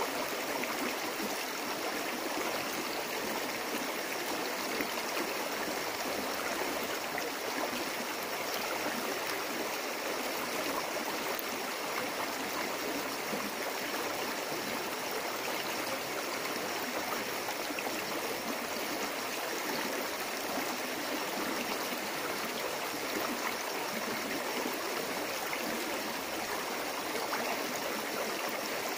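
Rocky stream flowing over stones, a steady, even wash of running water.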